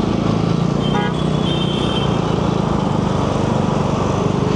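Motorcycle engine running steadily as it moves off in traffic, with a short vehicle horn toot about a second in.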